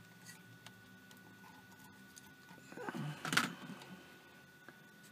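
Fingers handling and seating the plastic housing and tube assembly of a night vision monocular: faint clicks, then a louder scraping rustle with small clicks about three seconds in.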